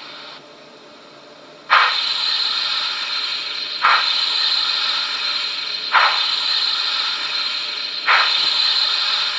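Sound decoder of a Trix 22941 SNCF class 241 A model steam locomotive playing steam hiss through the model's small loudspeaker, with a sharp chuff about every two seconds, four in all, as the locomotive runs at speed step 1. The hiss is quieter for the first couple of seconds, then comes in loud with the first chuff.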